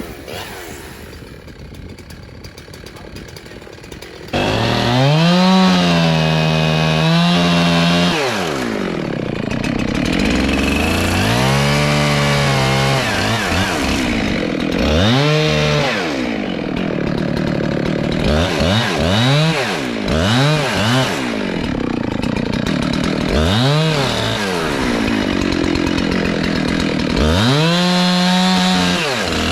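Jonsered two-stroke chainsaw running quietly for the first four seconds, then suddenly much louder, its engine revving up and easing off again and again as it cuts into a small tree.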